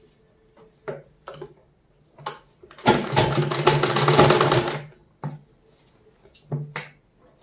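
Old black domestic sewing machine stitching a seam through cotton fabric in one run of rapid needle strokes lasting about two seconds, with a few short clicks before and after it.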